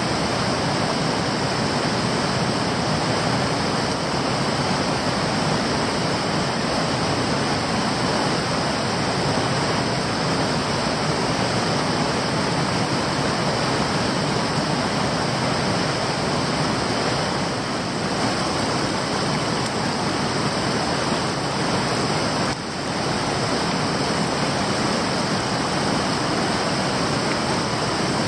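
Steady rush of flowing stream water, dipping briefly about 22 seconds in.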